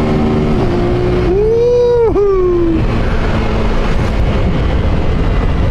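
Honda Titan 150's carburetted single-cylinder engine running with its intake hose removed, pulling under throttle. Its note rises, breaks sharply about two seconds in, as at a gear change, then falls away, over a steady rumble of engine and wind.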